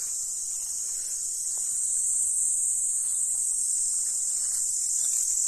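A steady, high-pitched chorus of insects buzzing, growing a little louder about two seconds in.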